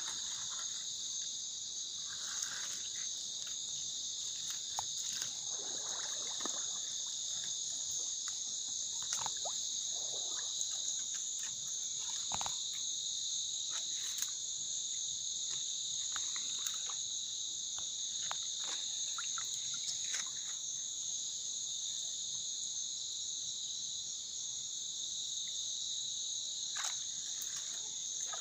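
Night insects, crickets among them, chirring steadily in two high bands, with brief rustles and a few sharp clicks as vegetation is brushed and handled.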